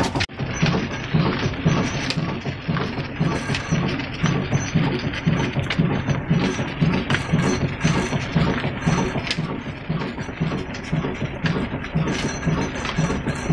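Pakistani-built Ruston Hornsby-type stationary diesel engine running steadily with an even, rhythmic beat, together with the clatter of the belt-driven line shaft and pulleys it powers.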